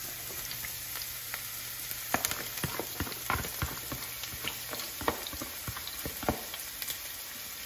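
Diced onion, red bell pepper and celery sizzling in hot olive oil in a stainless steel frying pan as they are tipped in, a steady hiss with scattered crackles and pops.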